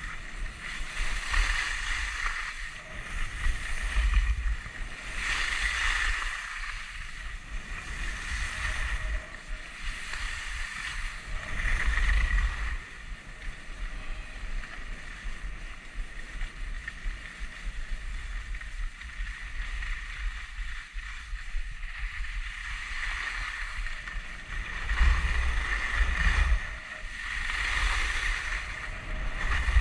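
Skis hissing and scraping over snow, swelling with each turn every few seconds, with wind buffeting the microphone in low gusty rumbles.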